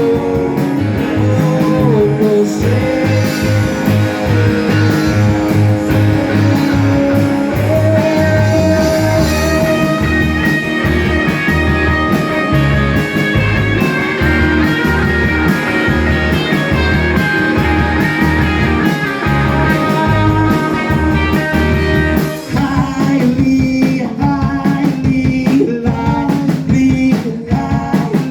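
A live rock band playing a song: electric guitar over a pulsing bass line and drums, with some singing. About 22 s in the part changes and the drum hits come through more sharply.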